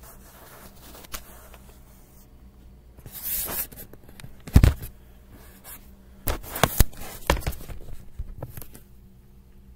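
Handling noises on a tabletop: a brief rustle, a loud dull thump about four and a half seconds in, then a run of sharp clicks and knocks between about six and eight and a half seconds.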